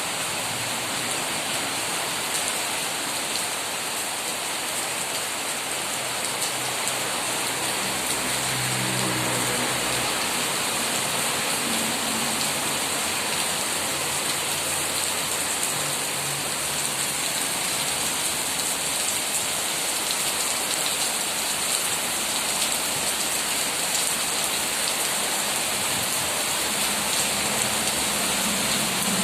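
Steady rain falling on trees and leaves, an even dense patter of drops on the foliage.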